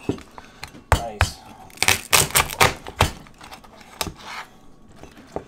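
A large knife chopping lengthwise through raw lobster tail shells onto a wooden cutting board. About eight sharp, irregular knocks and cracks, most of them bunched together in the middle.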